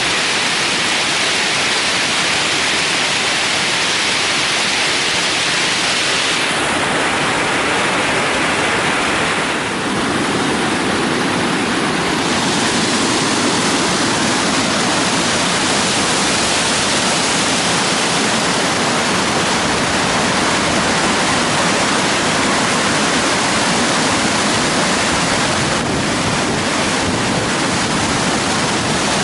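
Loud, steady rush of water falling over a creek waterfall, a constant hiss with no break. Its tone shifts slightly about six to ten seconds in.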